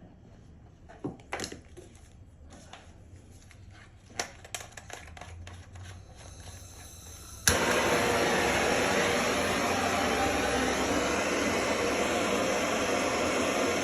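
A handheld plumbing torch for soldering copper pipe: a faint gas hiss, a sharp igniter click about seven seconds in, then the flame burns with a loud, steady hiss. Before that come scattered light clicks and taps.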